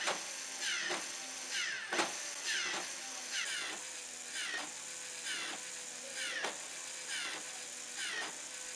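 LEGO Mindstorms NXT motors driving the clock's Technic gears and crank: mechanical clicking, with a steady motor tone through the middle, under a repeating musical figure.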